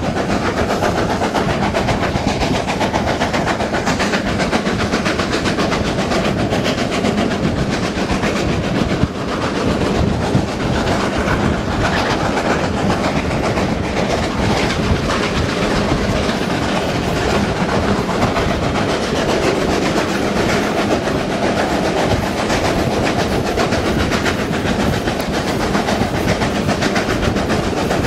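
Two GWR Castle class 4-6-0 steam locomotives double-heading a train up a steep gradient, heard from an open carriage window: their exhausts working hard under the steady clatter of the carriage wheels on the rails. There is a brief change in the sound about nine to ten seconds in.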